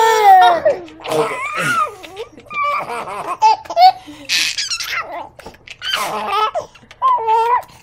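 Baby laughing in a string of short, high-pitched bursts with brief breaths between them.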